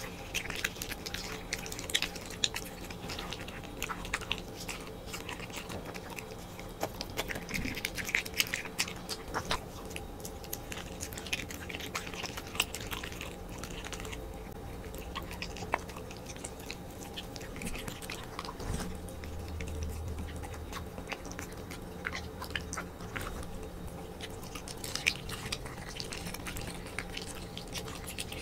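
A corgi biting and chewing raw meat, with wet chewing and irregular sharp clicks of its teeth, a few louder than the rest.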